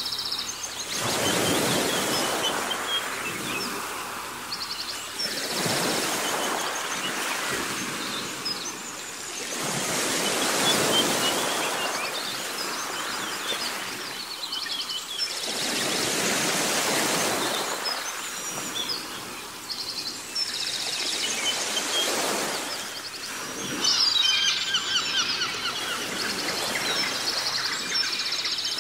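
Surf swelling and fading about every five or six seconds, with small birds chirping and trilling over it, most busily near the end.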